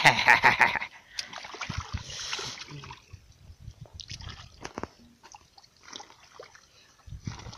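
Hands splashing and squelching through shallow water and soft mud while groping for fish. The splashing is loudest and most rapid in the first second, then breaks into scattered wet slaps and squelches.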